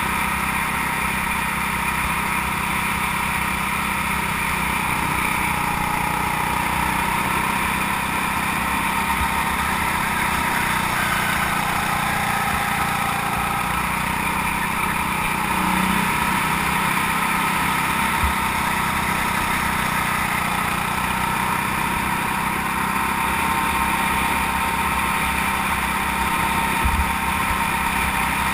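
Go-kart engine running steadily through a lap, its pitch dipping slightly a few times in the corners and rising again. Two brief low thumps come in the second half.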